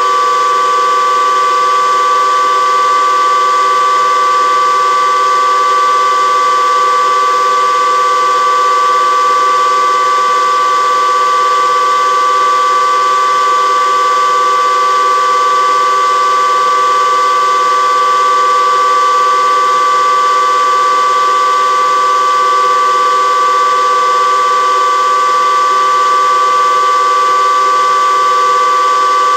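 High-speed cooling fans running steadily, a loud whine of several steady tones around 1 kHz over an even rushing hiss.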